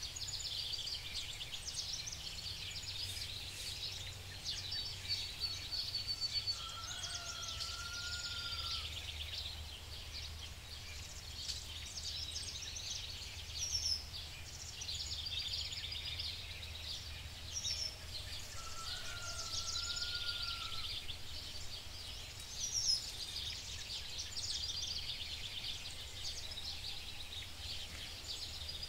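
Birds calling: a whistled gliding note twice, about twelve seconds apart, and scattered short chirps and a trill. Under them runs a dense high crackly hiss and a steady low hum.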